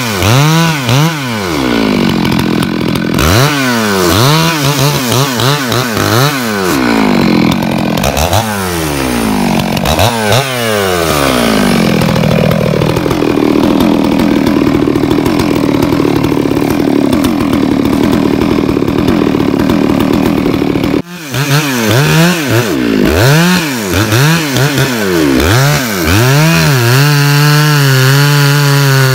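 Stihl MS 651 two-stroke chainsaw felling a large tree: the engine revs up and down repeatedly, then holds a steadier, lower pitch for several seconds as it cuts under load. It breaks off suddenly about two-thirds in, then revs again and runs at a steady high pitch near the end.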